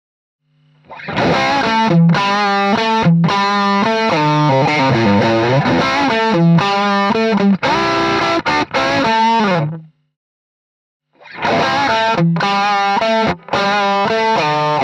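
Electric guitar played through a BSM Studio 75 treble booster, an emulation of an AIWA tape preamp, into an amp, giving a crisp, overdriven tone. A phrase of single notes and chords begins about a second in and stops near ten seconds. After a short pause, a second phrase starts and runs on.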